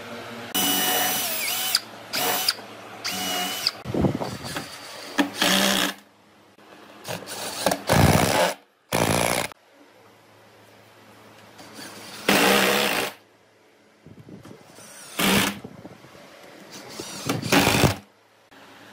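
Cordless drill run in about eight short bursts of a second or less, with pauses between them, driving screws into pine wood pieces; its motor whine climbs in pitch in some bursts.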